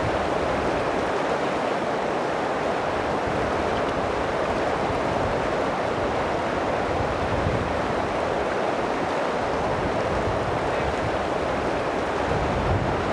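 Whitewater rapids rushing and splashing around an open canoe, heard from a camera low in the hull right by the water: a steady, loud rush of water.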